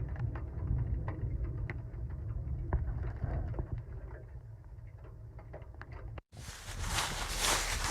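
A low rumble with scattered clicks that cuts off about six seconds in; after a brief gap, footsteps start.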